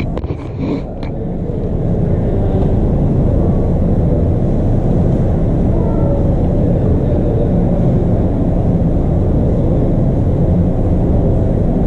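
A steady low rumble that dips slightly in the first second, then settles to an even level from about two seconds in.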